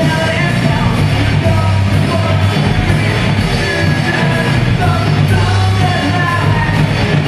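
Live rock band playing: a male vocalist singing into a microphone over electric guitars.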